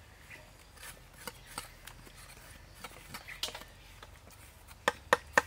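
Kitchen knives working fish on wooden chopping blocks: scattered light scrapes and taps, then three sharp chops in quick succession near the end.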